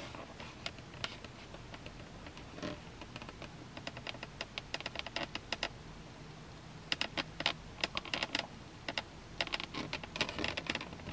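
Foam takeout clamshell containers creaking and clicking as they are held up and shifted in the hands, in several quick clusters of short, sharp clicks.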